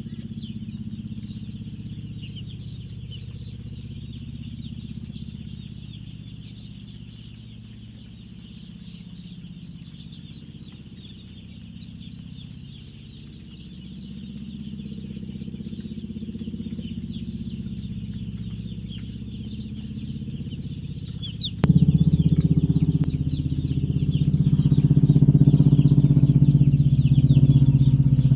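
A flock of broiler chickens calling continuously in many short high calls over a steady low hum. About three-quarters of the way through, a louder low drone starts suddenly and continues under the birds.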